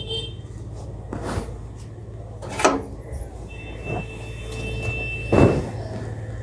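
A few sharp knocks and clunks in a kitchen over a steady low hum. The loudest come about two and a half and five and a half seconds in, and a thin steady high tone sounds for about two seconds before the last knock.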